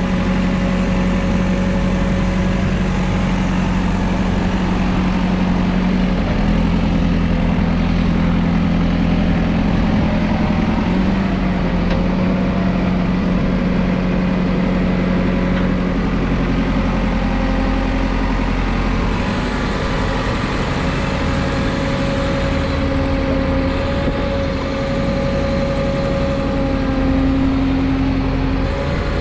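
JCB 4CX backhoe loader's diesel engine running steadily. Its speed shifts in small steps about six seconds in, again around eleven seconds, and once more about two-thirds of the way through.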